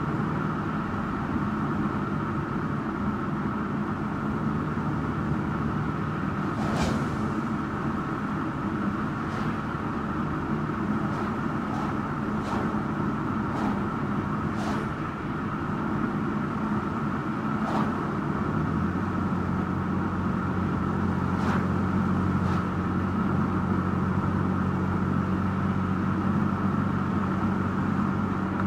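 Car driving along a country road: steady engine hum and tyre noise, with the engine note shifting and growing stronger about two-thirds of the way through. A handful of short, sharp clicks are scattered through the middle.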